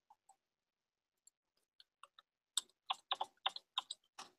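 Computer keyboard being typed on: a quick run of about a dozen faint key clicks, starting about halfway through.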